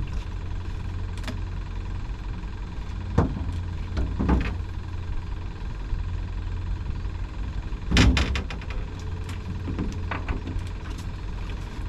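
A boat motor idling with a steady low hum, with several knocks and clatters of gear on the boat, the loudest cluster about eight seconds in.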